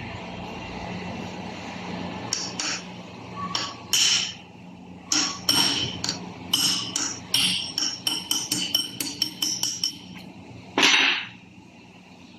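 Hammer tapping on steel gearbox parts during the teardown of a Toyota Hilux manual gearbox's shift rods. The strikes ring and come in a quickening run of light taps, then one heavier blow near the end.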